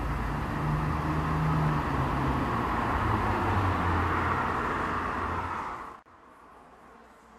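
Distant jet airliner overhead, a Boeing 777-300ER with GE90 engines, heard as a steady low rumbling roar with a wavering hum. It cuts off abruptly about six seconds in, leaving only faint hiss.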